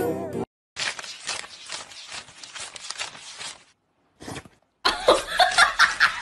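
A man singing with a husky howling along, cut off within the first half second, then a crisp rustling of paper banknotes being handled. About five seconds in a person breaks into loud, choppy laughter.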